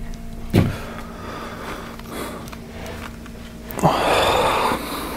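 A man's long, breathy sigh about four seconds in as he stretches back in an office chair, the loudest sound here. There is a single knock about half a second in, over a steady low hum.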